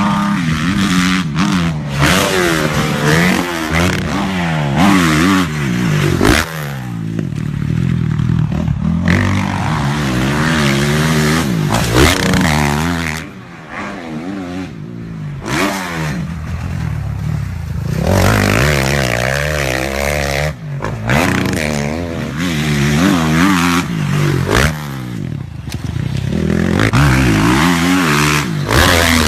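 Motocross bike engines revving hard and accelerating, pitch climbing and falling with throttle and gear changes, across several clips that cut abruptly. About halfway through the engine sound briefly drops quieter.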